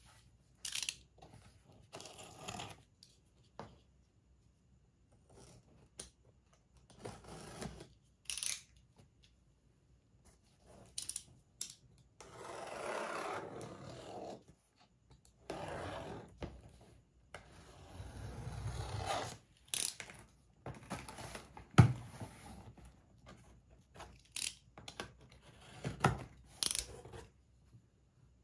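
A cardboard shipping box being opened by hand: packing tape is slit and torn off, and the flaps scrape and rustle as they are handled, in separate bursts with scattered clicks. One sharp knock about two-thirds of the way through is the loudest sound.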